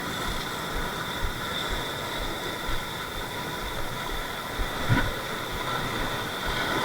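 Steady rush of wind and rough sea surf on an action camera's microphone, with gusty low buffeting.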